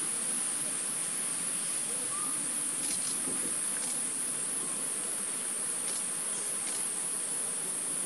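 Insects in a steady high-pitched drone that does not break, with a few faint ticks.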